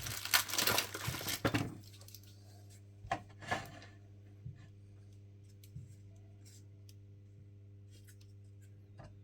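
Hot air gun of a soldering station blowing with a steady hiss for about two seconds, then cut off abruptly. After that a low steady hum remains, with a few light clicks and taps.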